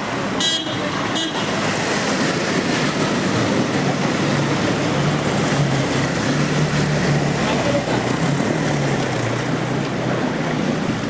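Street traffic in heavy rain: a steady hiss of rain and wet tyres with vehicle engines running, and two short toots near the start.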